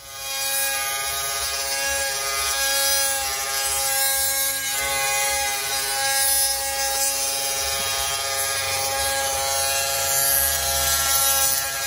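Dremel rotary tool with a grinding bit running at high speed, grinding into the car's body metal to enlarge drilled pilot holes for bolts; a steady high-pitched whine.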